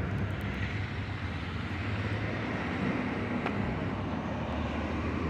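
Steady low hum of a car running, heard from inside the cabin.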